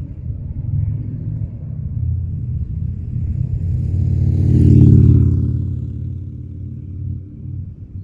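Harley-Davidson Sportster 883 Iron's V-twin, fitted with a Supertrapp 2-into-1 SuperMeg exhaust, riding by: the exhaust note grows louder, passes about five seconds in, then fades away.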